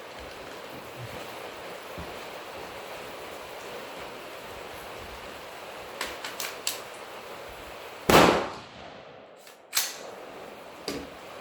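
AR-15 being readied and fired: a few light metallic clicks, then one loud bang about eight seconds in, followed by more clicks near the end.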